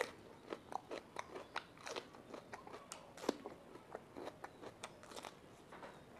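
Mouth chewing raw yellow bell pepper (capsicum): an irregular run of short, crisp crunches, about three a second.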